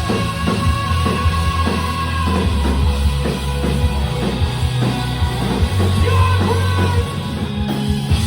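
Live rock band playing loud, with a steady drum beat, heavy bass and singing, in a low-quality phone recording from the audience.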